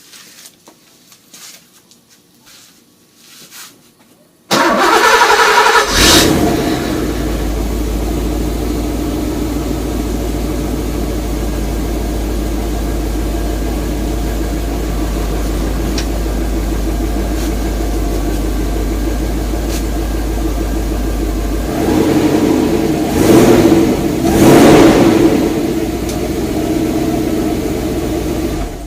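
1986 Porsche 928 V8 started, exhaust still through the stock rear muffler: after a few quiet seconds it catches suddenly with a brief flare of revs and settles into a steady idle. About three-quarters of the way through it is revved twice, then idles again and stops near the end.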